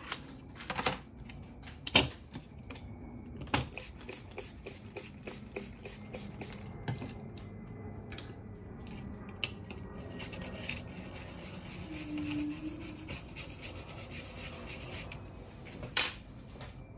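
Small hand tools clicking, tapping and scraping at a repair bench, with sharper knocks about two seconds in and near the end, and a dense run of fine ticks through the second half.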